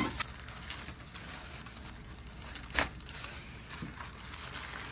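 Faint crinkling and rustling of someone shifting on a chiropractic treatment table, with one sharp click about three seconds in.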